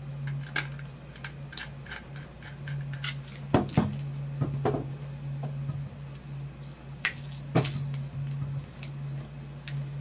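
Small metal clicks and clinks of a screwdriver working the front screws of a graphics card during reassembly. A couple of heavier knocks come about three and a half seconds in, and two more sharp clicks come near seven seconds, over a steady low hum.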